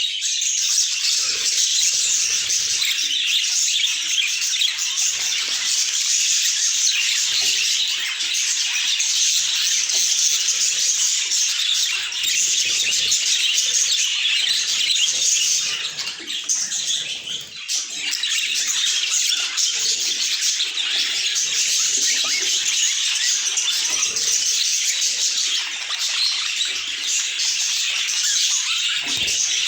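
Budgies chattering and warbling without pause, a dense stream of chirps and squawks, dipping briefly about sixteen seconds in.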